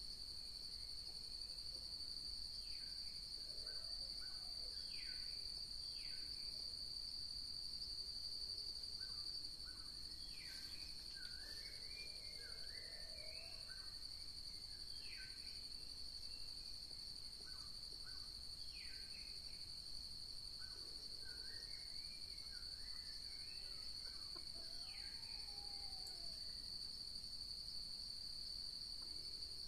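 Steady high-pitched insect drone, with many short chirping and warbling bird calls scattered through it.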